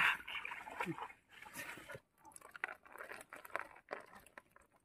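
Faint, irregular crunching and rustling of dry plant stalks and water-hyacinth roots being handled, in short uneven bursts with brief pauses.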